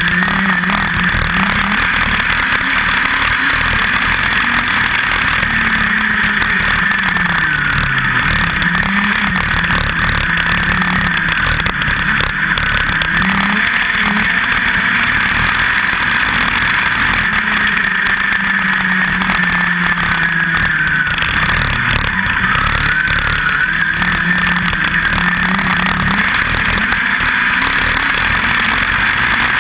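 USAC midget race car's four-cylinder engine at racing speed, heard from on board. The revs rise and fall several times as the car goes around the dirt oval.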